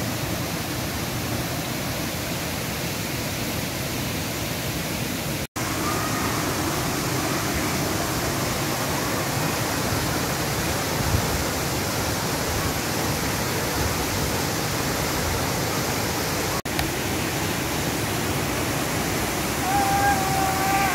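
Waterfall in full monsoon flood, a steady loud rush of falling water. The rush breaks off for an instant twice, about five and a half and sixteen and a half seconds in.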